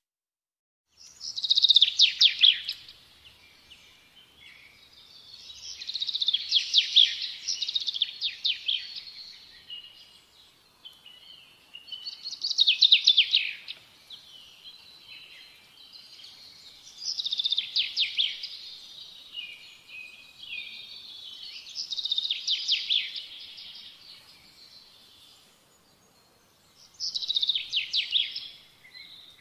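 A songbird singing: high phrases of rapid trilled notes, each two to three seconds long, repeating about every four to five seconds with softer twittering in between.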